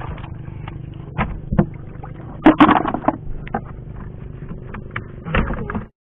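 A knife blade scraping and prising kagotkot shellfish off a rock, with irregular sharp clicks and knocks, a loud cluster of them a little before the middle. Under it runs a steady low engine drone.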